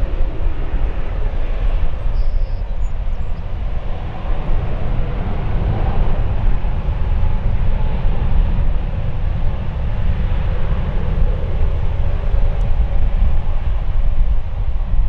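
Jet airliner engines running, heard through heavy wind buffeting on the microphone that fills the low end with a constant rumble.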